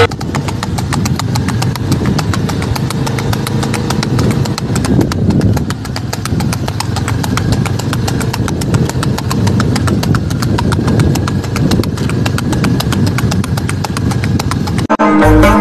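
Hooves of a ridden Kathiyawadi horse clip-clopping on a hard road at a brisk, even trot, over a low steady rumble. Folk music with tabla cuts in right at the end.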